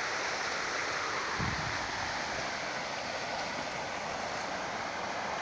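Steady rushing of flowing water, with a brief low thump about a second and a half in.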